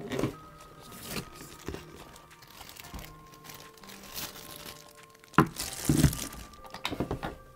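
Background music with irregular crinkling, rustling and knocks of packaging being handled, loudest in a cluster about five and a half to six seconds in.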